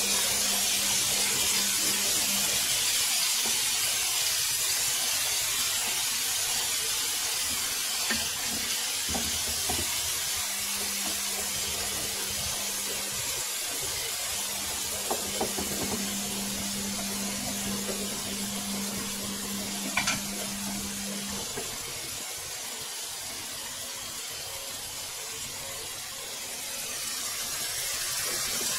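Thin strips of beef frying in oil in a large pan: a steady hiss and sizzle, with a few sharp taps of a wooden spatula against the pan. The meat is still giving off its water, so it hisses and steams rather than frying dry.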